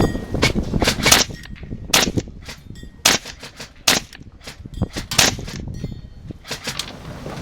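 Gas-blowback airsoft rifle firing a string of single shots, each a sharp crack with the bolt's clack, at irregular spacing of roughly one a second. Strong wind rumbles on the microphone throughout.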